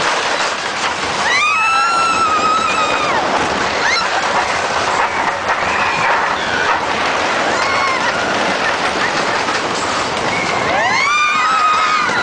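Giant Dipper wooden roller coaster train running along its track, a steady loud rattle and rush of wind, with riders letting out long, high screams about a second in and again near the end and shorter shrieks in between.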